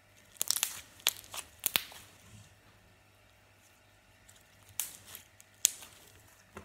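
Black butter slime stretched and pressed between fingers, giving sharp clicks and pops: a quick cluster in the first two seconds, then two more around five seconds in.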